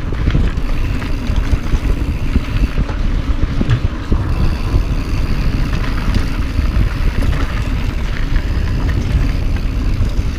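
Mountain bike riding fast down rough dirt singletrack: wind buffeting the microphone over the steady rumble of tyres on dirt and a dense run of small knocks and rattles from the bike over bumps.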